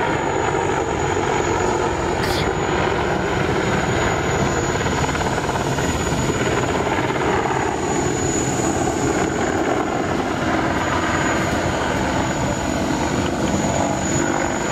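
Apache attack helicopter flying a wingover: steady rotor and twin turboshaft engine noise with a thin, steady high whine.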